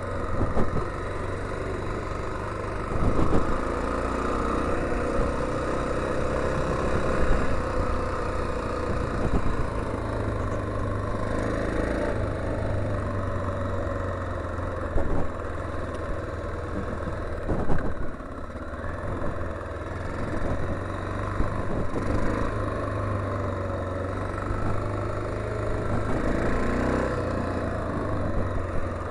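1987 Honda XL600R's 589cc single-cylinder engine running steadily as the bike is ridden off-road, with a few short thumps along the way.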